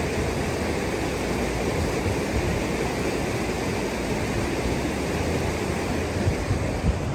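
Steady rushing water of a mountain stream, an even rush with a deep rumble underneath.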